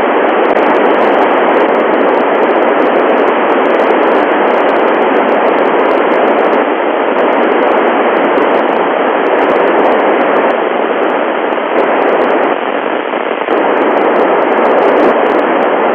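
Loud, steady FM receiver hiss (white noise) from the satellite downlink on an Icom IC-9700, with no station coming through: the satellite signal is not being received.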